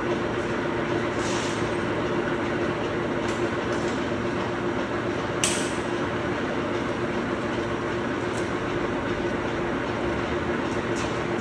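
Steady industrial machinery hum with one constant tone, a few brief high hisses, and a single sharp click about five and a half seconds in.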